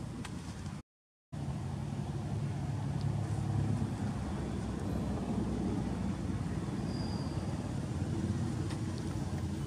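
Steady low outdoor background rumble with no clear single source, cut to total silence for about half a second roughly a second in.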